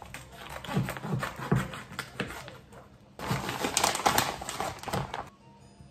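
Kitchen handling noises while meat is portioned for freezing: a few separate knocks, then about two seconds of dense clicking and rustling, like packaging or wrap being handled.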